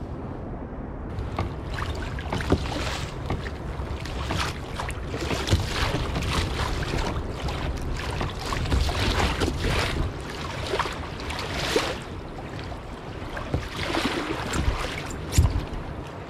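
Sea water sloshing and splashing against a kayak hull in irregular surges, with wind rumbling on the microphone.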